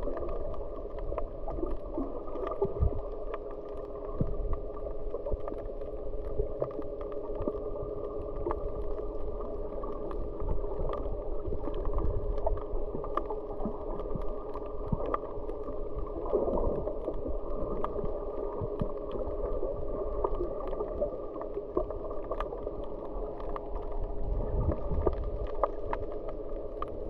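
Underwater sound picked up through an action camera's waterproof housing: a muffled, steady hum with many faint clicks and crackles scattered through it.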